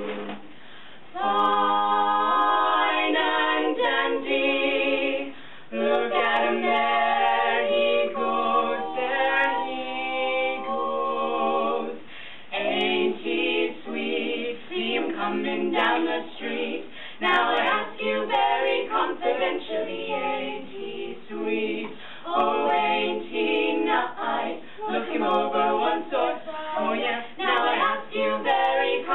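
Female barbershop quartet singing a cappella in four-part close harmony. After a short break about a second in, long held chords give way in the second half to shorter, choppier phrases.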